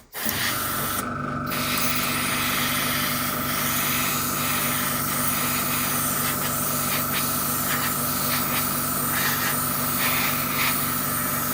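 An airbrush spraying primer with a steady hiss, over the steady hum of its compressor. It starts just after a brief pause.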